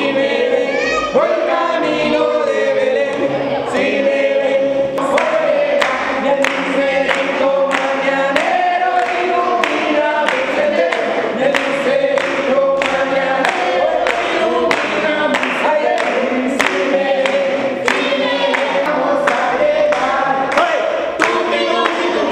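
A group of voices singing together, with steady rhythmic hand clapping joining in about five seconds in.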